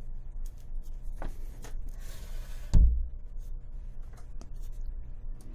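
Handling noises as the rifle upper and its surroundings are repositioned: a brief rustle, then a single dull thump a little under three seconds in, with a few small clicks, over a steady low hum.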